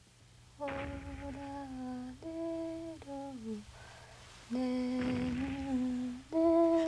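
Someone humming a slow tune in two phrases of long held notes that step up and down, each phrase ending in a falling slide.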